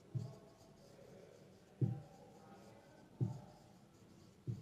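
Marker pen writing on a whiteboard: four soft knocks about a second and a half apart as the pen strikes and lifts from the board, with faint scratching between them.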